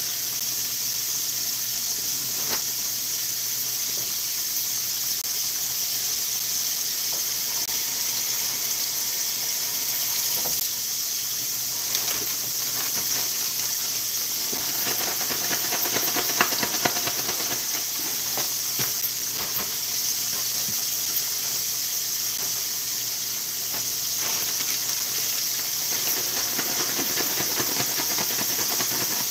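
Cornmeal-coated catfish fillets deep-frying in hot oil in a skillet: a steady sizzle with occasional crackles and pops.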